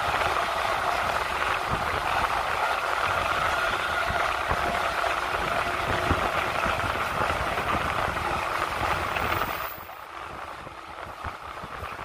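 JNR 185 series train running at speed, heard through an open window: a steady rush of wind and wheel-on-rail running noise. It becomes markedly quieter about ten seconds in.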